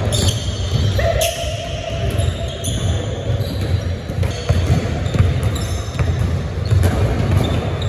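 Basketball dribbling on a hardwood gym floor, with short high-pitched sneaker squeaks scattered throughout.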